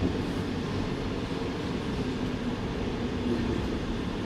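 VBZ Flexity tram running, a steady low rumble with a faint hum in the middle.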